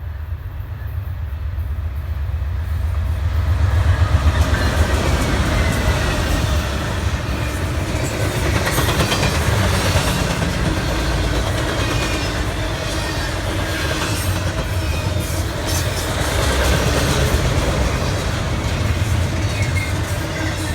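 Freight train passing close by, hauled by two GE Dash 9-40CW diesel locomotives. The locomotives' engine rumble builds and is loudest about four seconds in, then the freight cars roll past with a steady rushing noise and the clickety-clack of wheels over the rail joints.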